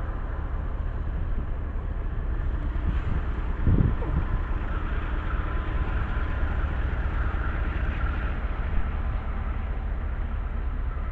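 Freight train cars rolling past with a steady low rumble of wheels on rail, and a single thump about four seconds in.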